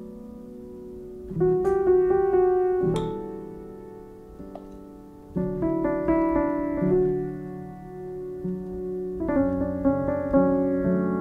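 Background piano music: slow chords struck every few seconds, each left to fade.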